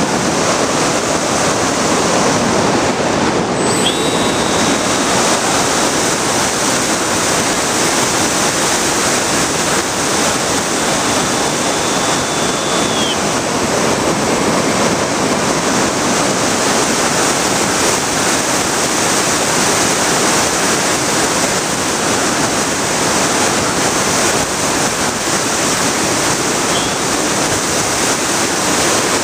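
Steady loud rush of wind noise on the onboard camera of a Bixler foam RC plane in flight. A faint high whine comes in about four seconds in and lasts about nine seconds.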